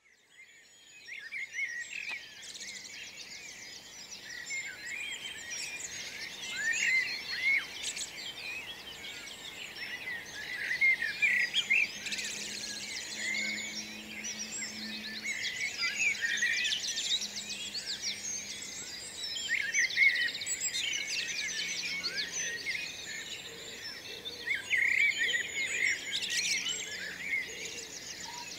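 Dawn chorus: many songbirds singing at once in a dense, overlapping tangle of quick chirps and whistles, fading in over the first second or two.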